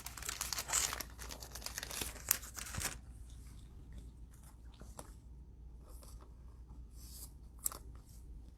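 Crinkling and tearing of thin plastic card-pack wrapping, dense for about the first three seconds, then only a few soft scattered crackles.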